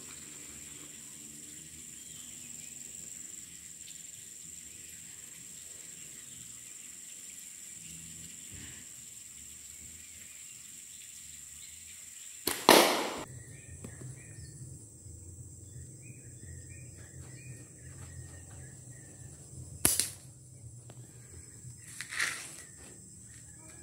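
Slingshot shots: a loud sharp snap of released rubber bands a little past halfway, then two more snaps near the end.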